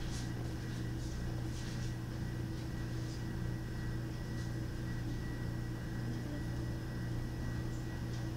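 Steady low hum of room tone with a faint thin high whine, and a few faint distant taps in the first few seconds.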